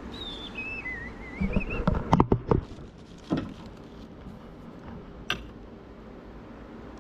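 A short wavering whistle that falls then rises a little, then a quick cluster of loud knocks and clatters about two seconds in, one more knock, and a sharp click, as parts are handled and a bolt is fitted.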